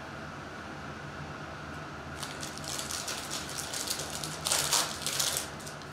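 Foil trading-card pack being torn open by hand, its wrapper crinkling. The crinkling begins about two seconds in and is loudest shortly before the end.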